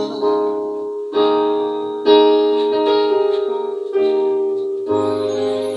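Electronic keyboard playing held chords, a new chord struck about once a second, as an instrumental break between the sung lines of a song.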